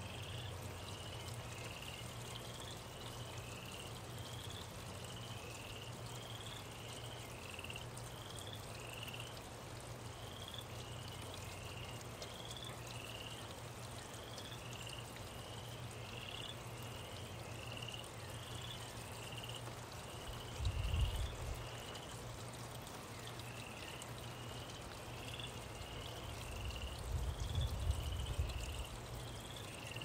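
Steady rain hiss with a repeated high chirping animal call, about two chirps a second. Low rumbles of distant thunder come about two-thirds through and again near the end, and they are the loudest sounds.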